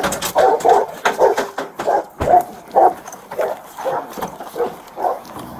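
A dog barking over and over, a couple of barks a second, the barks spacing out toward the end.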